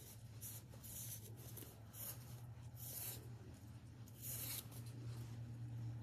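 Faint rustling and rubbing of a fabric ribbon being worked with the fingers to undo a knot, in about five short scratchy strokes, the longest a little after four seconds in. A steady low hum runs underneath.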